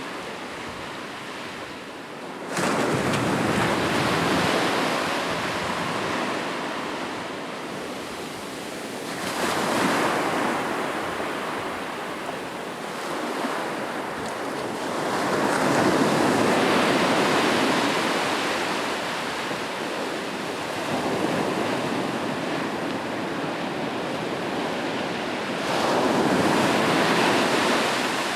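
Ocean waves breaking on a beach, with a steady wash of surf between breaks. A wave breaks suddenly a couple of seconds in, and three more swell and fade after it, the last near the end.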